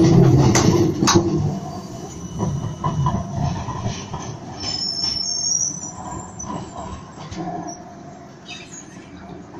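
Melbourne trams running over street-track points and crossings: a close passing tram's wheels knock sharply over rail joints in the first second or so, then wheels squeal briefly on the curved track about five seconds in, and the rumble fades.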